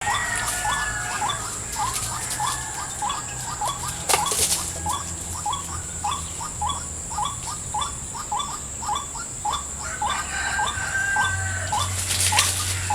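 White-breasted waterhen calling, a long steady series of short repeated notes at about two to three a second. A constant high-pitched drone runs behind, with brief louder rustles about four seconds in and near the end.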